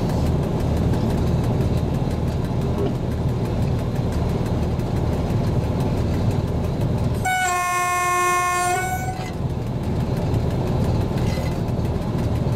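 SU45 diesel locomotive running steadily, heard from the cab, with one warning blast on its horn of about two seconds, a single steady tone, past the middle.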